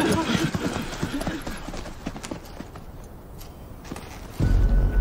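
Many quick footfalls with a clatter of armour as a group of soldiers runs off, thinning out and fading over the first two seconds. A low steady drone comes in near the end.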